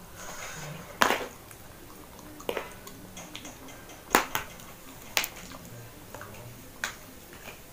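Cutlery and a plastic water bottle handled at a plate of instant noodles: a handful of short, sharp clicks and knocks. The loudest come about one second in and about four seconds in.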